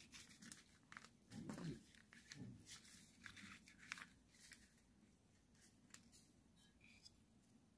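Faint handling noises of hands at work on a fan: scattered light clicks and rustling, with a dull low knock a little over a second in, then near silence.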